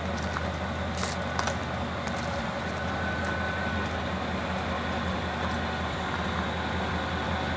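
Chevrolet S10 pickup's 4.3-litre V6 running steadily at idle with a low, even exhaust rumble.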